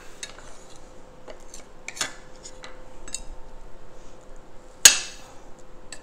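Table knife clinking and scraping against a ceramic plate while working on a small muffin: scattered light clicks, a sharper clink about two seconds in and a louder one near five seconds.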